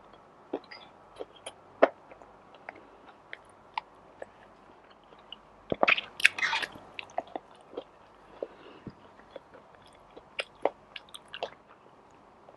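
Close-miked chewing and biting of food, with scattered sharp mouth clicks. A louder, dense cluster of crunching comes about six seconds in.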